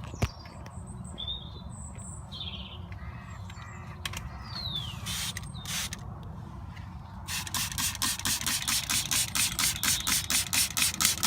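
Trigger spray bottle squirting soapy water onto a BMW X5's leaking air suspension bag to show the leak: a fast, even run of short hissing squirts, about seven a second, starting about seven seconds in. Birds chirp a few times earlier.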